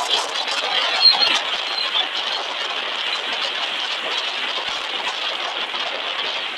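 Steady road and wind noise of a vehicle driving along a tarmac road, with scattered small clicks and rattles and a brief louder knock about a second in.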